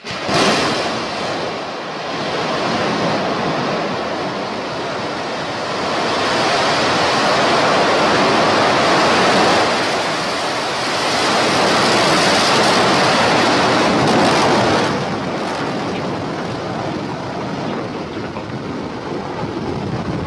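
Starship SN5's single Raptor rocket engine firing: a loud, steady rushing noise that starts suddenly and eases somewhat about fifteen seconds in.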